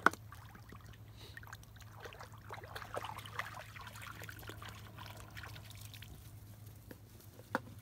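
A dog moving about in the shallow water of a pond, making small splashes and trickling sounds that are busiest in the middle. A sharp knock right at the start and another near the end.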